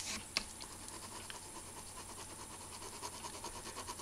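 Pen nib scratching on paper in fast back-and-forth shading strokes, a quick even run of faint scratches, with one sharper tick about half a second in.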